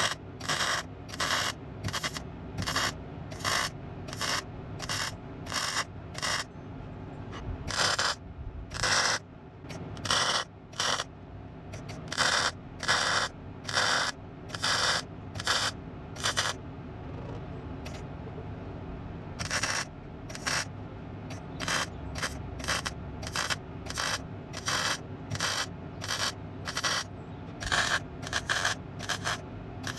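MIG welder stitch-welding a steel car sill panel: a string of short bursts of crackling arc, one to two a second, stopping for a few seconds a little past the middle before starting again.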